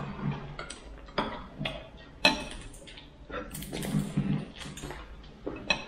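Spoons and dishes clinking during a meal, a series of short sharp clicks, with a few brief low vocal sounds in between.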